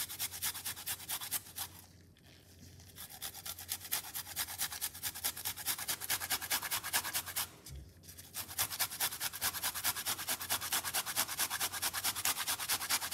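Fresh ginger root rasped back and forth on a flat stainless-steel hand grater in quick, even strokes, with two short pauses, about two seconds in and just before eight seconds.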